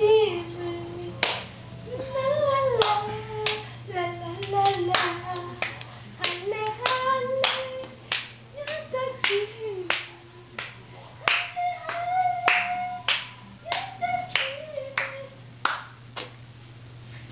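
A high voice sings a wordless melody in held notes while hands clap along, sharp claps roughly twice a second.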